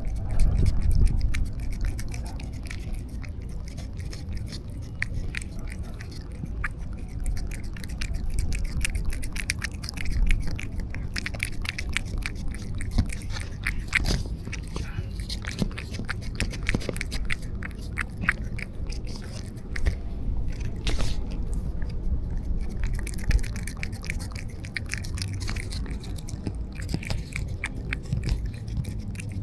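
A cat eating close up: quick, irregular wet chewing and licking clicks, over a low rumble.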